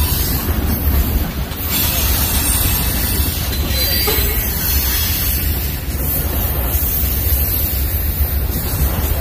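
Freight cars rolling past: a steady rumble of steel wheels on rail, with a brief high wheel squeal about four seconds in.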